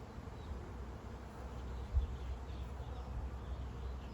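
Honeybees buzzing steadily around an open hive, with a low rumble underneath and a single brief bump about two seconds in.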